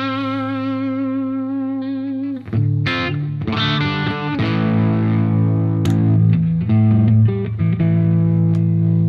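Overdriven electric guitar played through a Diezel Schmidt amp and pedals: a long held chord, then further chords struck and left ringing every second or two.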